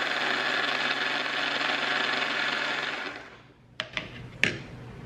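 Electric mixer-grinder running steadily, grinding tomato and mint chutney in its stainless steel jar, then winding down about three seconds in. A couple of short knocks follow.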